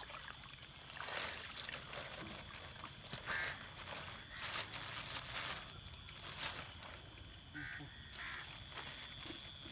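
Waterfowl calling in a few short honks, once about midway and twice near the end, over light water splashing as a plastic bag of fish is emptied into a pond.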